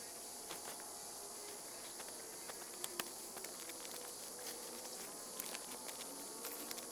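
Faint outdoor night ambience dominated by a steady high buzzing chorus of insects such as crickets, with scattered small clicks and ticks.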